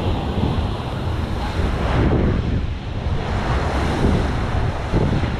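Surf washing on a sandy beach, with wind rumbling on the microphone.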